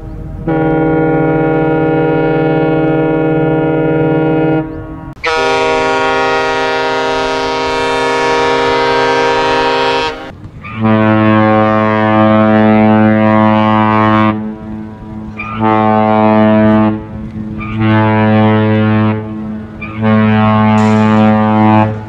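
Ship horns: two long blasts from the Hapag-Lloyd cruise ship MS Bremen, the second brighter in tone. Then the low horn of the UASC container ship MV Sajir sounds one long blast followed by three shorter ones, the last cut off.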